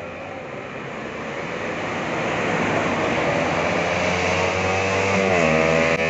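Road traffic growing louder over the first two or three seconds and then holding steady, as a motorcycle fitted with an open aftermarket exhaust approaches ahead of a tanker truck. A guitar music track comes in near the end.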